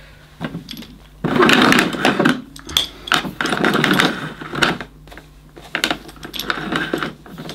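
Automatic cord rewind of a 1980s Hoover Sensotronic System 3 vacuum cleaner reeling the mains cable back into the machine, rattling and clicking in several spurts as the cable is drawn in.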